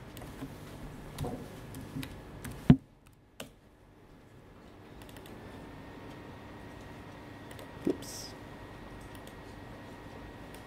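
Scattered clicks and taps of a laptop keyboard and mouse, with one sharp, loud click about two and a half seconds in and a smaller knock near eight seconds, over a low steady room hum.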